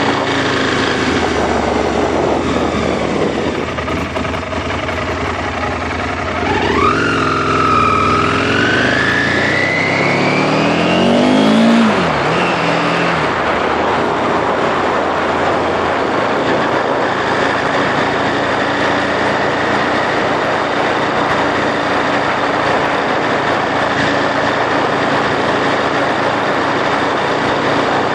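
2001 Aprilia Falco's V-twin engine on the move: about seven seconds in it accelerates, its pitch rising for several seconds, then drops off near twelve seconds. After that the engine holds a steady cruise under a constant rush of wind noise.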